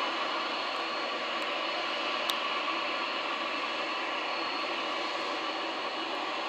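Distant drone of a Lockheed P-3C Orion's four Allison T56 turboprop engines as the aircraft climbs away after takeoff: a steady, hiss-like noise with a faint high whine.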